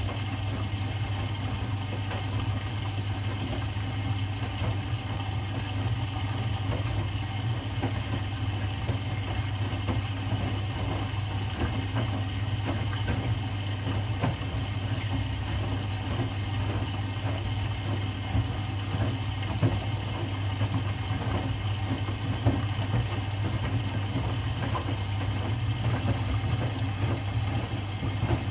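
Front-loading washing machine running a wash cycle: a steady motor hum, with water sloshing and faint knocks as the drum tumbles the wet laundry.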